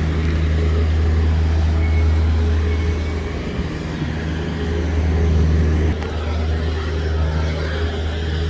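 Road traffic: a steady low engine rumble from motor vehicles.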